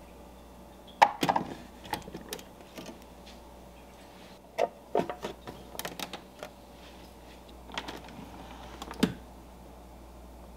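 Hard plastic clicks and knocks from the clear water reservoir and its lid on a Keurig coffee maker being handled and fitted: a cluster of sharp clacks about a second in, another around five to six seconds, and a single louder knock near the end.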